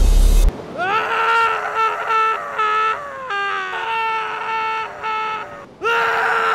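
A man screaming 'argh' in a high, drawn-out cry. It starts as a stuttering run of short pulses, then becomes a held note, breaks off briefly and starts again near the end. Before the scream, a loud low rumble cuts off suddenly about half a second in.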